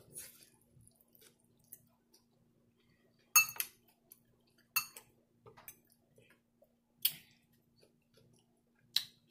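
Metal fork clinking against a glass bowl of collard greens as food is scooped up: about five short, sharp clinks a second or two apart, the loudest about three and a half seconds in, with quiet chewing between.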